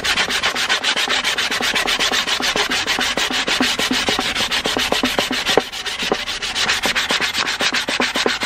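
Sandpaper rubbed by hand along the edge of a solid wood board in quick back-and-forth strokes, several a second, taking a little off so the board will fit.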